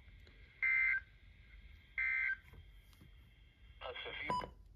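EAS end-of-message data bursts from a Midland NOAA weather radio's speaker, marking the end of the warning broadcast: two short buzzy two-tone squawks, each about a third of a second, about 1.4 s apart. Near the end the radio is handled and a button on it clicks.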